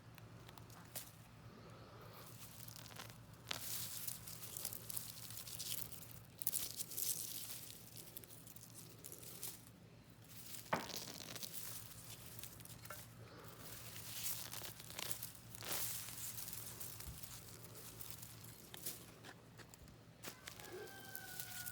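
Garlic plants being pulled and handled in garden soil: scattered crackling and tearing rustles of leaves, stems and roots.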